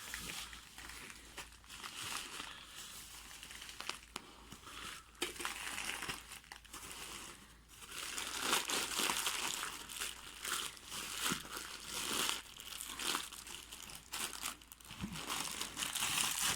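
Packaging crinkling and rustling as a boxed stainless steel kettle is unpacked, with scattered sharp clicks and knocks of the packaging being handled. It comes and goes, busier in the second half.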